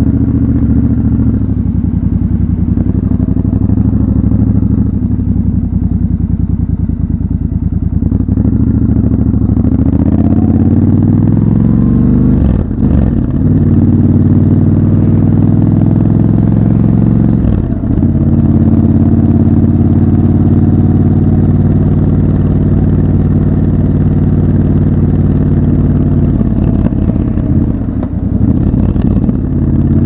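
Triumph Scrambler 1200 XC's 1200 cc parallel-twin engine running loud under the rider, at low revs at first, then revving up about ten seconds in. The sound dips briefly where the throttle closes, twice in the middle and again near the end, with steady pulling between.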